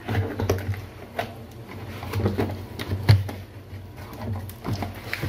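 Packing tape on a cardboard box being slit with a small cutter and the flaps worked open: irregular scraping, rustling and sharp clicks, the loudest about three seconds in, over a steady low hum.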